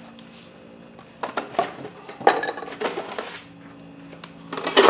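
Packaging and small plastic parts being handled on a workbench: a few light knocks and clinks about a second in and around two seconds, and a louder cluster near the end.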